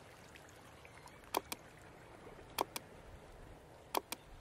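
Three double clicks of a computer-mouse click sound effect, about 1.3 s apart, each a quick press-and-release pair, over a faint steady hiss.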